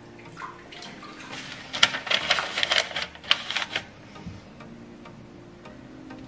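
Paper coffee filter rustling and crinkling as it is fitted into the basket of a drip coffee maker, a quick run of light crackles lasting about two seconds.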